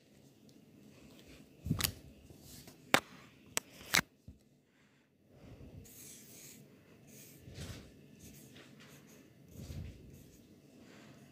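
A marker scratching softly across sketchbook paper as a round outline is drawn, preceded by four sharp clicks or taps in the first four seconds.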